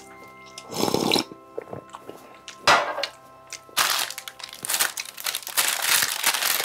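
Paper burger wrapper being crinkled and peeled open by hand, a continuous crackling from about four seconds in. Before it come two short, sharp noises, over soft background music.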